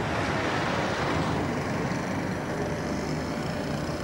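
Street traffic: cars passing along the road, a steady wash of tyre and engine noise that softens about a second and a half in.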